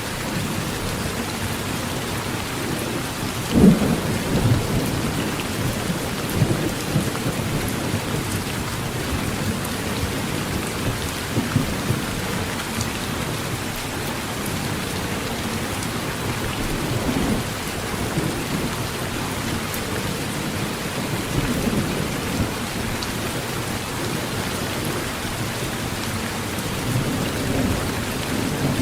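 Heavy rain falling steadily on a metal tin roof, with low thunder rumbling now and then, loudest about three and a half seconds in.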